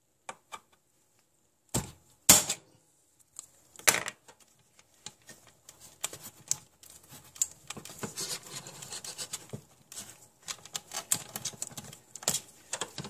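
Screwdriver tapping and prying at a knockout in an LED under-cabinet light fixture's frame to break it out. A few sharp clicks come first, the loudest about two seconds in, then a run of quick, irregular clicks and scraping.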